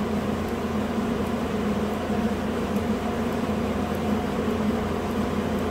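Steady mechanical hum from a running machine or fan, even in level with no change.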